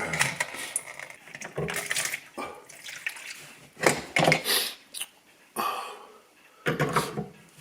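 Kitchen sink drain parts being worked loose by hand: irregular scraping, rattling and knocks, with water splashing out of the drain.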